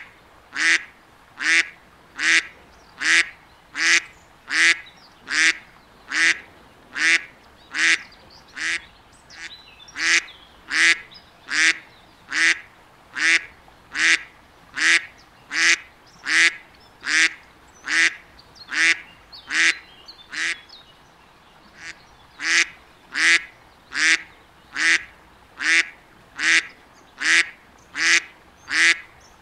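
Mallard duck quacking over and over at an even pace, a little more than one quack a second, with short breaks about a third of the way in and again about two-thirds in.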